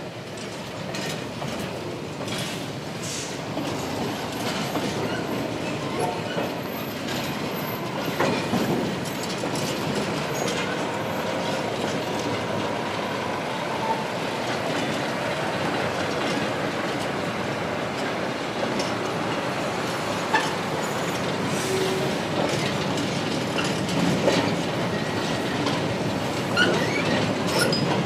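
Freight train hopper wagons rolling slowly through sidings, wheels clicking and clanking over the track, with a faint squeal from the wheels now and then.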